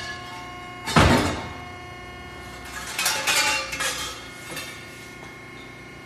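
Metal clanks in a scrap yard: one loud clank about a second in, then a run of clattering knocks around three seconds, over a steady machine hum.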